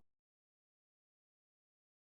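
Silence: the audio is blank.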